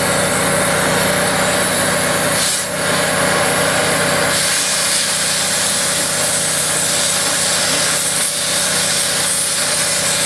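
Oxy-fuel cutting torch burning Chem-O-Lene gas, hissing steadily as it makes a bevel cut through steel plate. The hiss grows sharper about four and a half seconds in.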